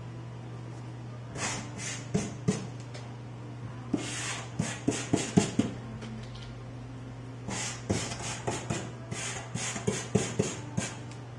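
Worn-down chip brush wet with denatured alcohol scrubbing across UART sanded pastel paper: three groups of short, scratchy strokes with pauses between them, over a steady low hum.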